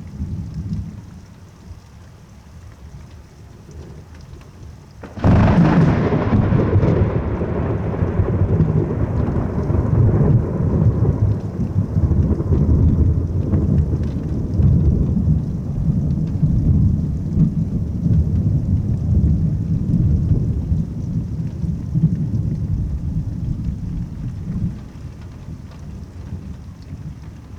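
Thunderstorm rain hissing, then a sudden loud thunderclap from a lightning strike about five seconds in, rolling into a long rumble of thunder that slowly fades over some twenty seconds.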